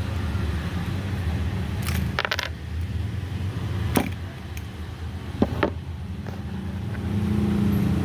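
Small sharp clicks and taps of a screwdriver prying at the switch of a Kemei KM-1986 hair clipper, a short cluster about two seconds in and single clicks later on, over a steady low hum.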